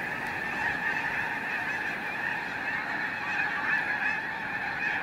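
A large flock of geese calling: a continuous, overlapping chorus of honks.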